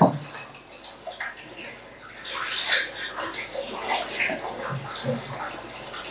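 A recorded soundscape of sea waves washing, with animal calls, played back through small loudspeakers. There is a sharp thump right at the start.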